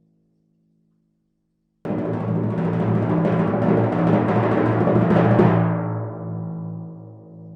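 Timpani drum roll: silent at first, then a roll starts suddenly about two seconds in and keeps going loudly for about three and a half seconds. It then stops and the drum rings away.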